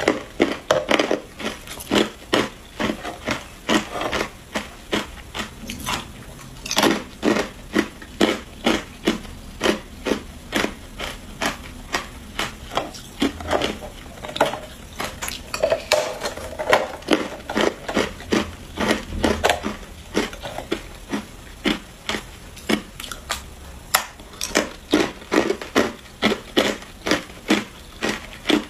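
Hard clear ice being bitten and chewed close to the mouth: a long run of sharp, loud crunches, about two to three a second.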